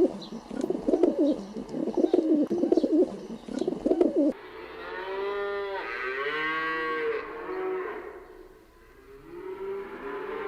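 A dove cooing in repeated low phrases, about one a second, then about four seconds in a cow mooing: one long moo and a second starting near the end.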